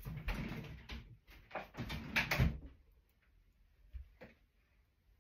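A few irregular light knocks and rustling for about the first two and a half seconds, then near quiet with two faint clicks near the end.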